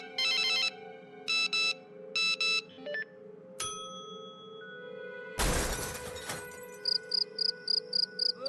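A run of animation-app sound effects over a steady music bed. First come three short bursts of a trilling electronic phone ring. A single chime rings out about three and a half seconds in, and a crash of noise lasting about a second follows at about five seconds. Near the end come rapid short high beeps, about four a second.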